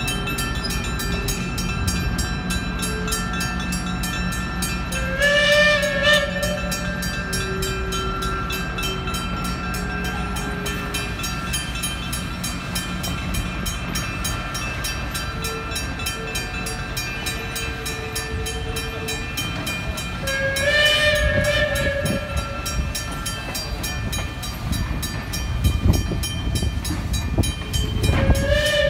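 A mechanical railroad crossing bell rings in a rapid, even beat throughout, and a passing train rumbles under it. A locomotive horn sounds three times in short blasts, at about five seconds, about twenty seconds, and right at the end.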